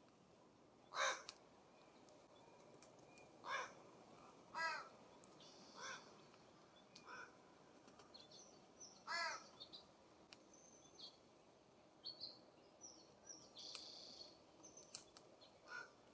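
California scrub-jay giving harsh, raspy calls, about seven of them spread irregularly a second or more apart. Thin, high chirps of smaller birds come between them, mostly in the second half.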